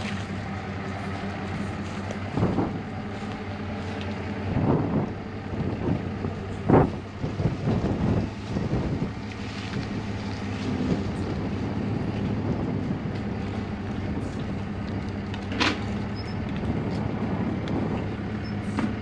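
Pickup truck engine running steadily at low revs while it backs a fifth-wheel trailer, with a few knocks and clunks in the first half and a sharp click near the end.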